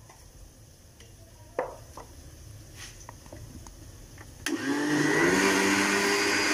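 A few light knocks, then about four and a half seconds in an electric countertop blender switches on: its motor whine rises briefly and settles into a steady run as it mixes gram flour, yogurt and water into a batter.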